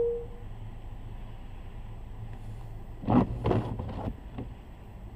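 A single steady electronic beep dies away just after the start, over a low steady car-cabin hum. A short cluster of knocks and clunks follows about three seconds in.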